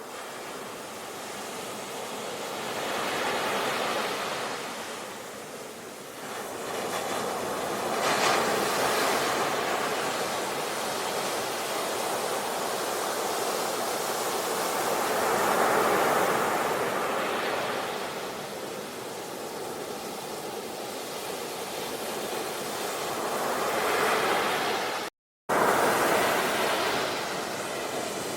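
Ocean waves breaking and washing in, the surf swelling and fading every several seconds. A split-second gap of silence cuts in near the end.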